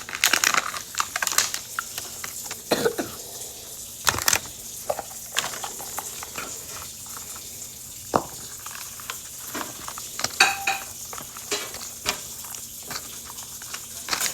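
Small plastic miniature grocery toys clicking, knocking and rustling as they are handled and set into a toy fridge, in a string of irregular light taps.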